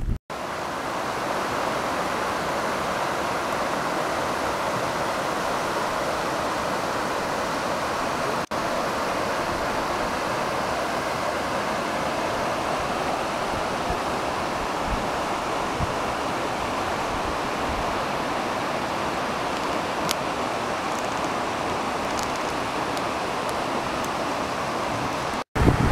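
Mountain stream rushing over boulders: a steady, even roar of water. It cuts out for an instant about eight seconds in and again near the end.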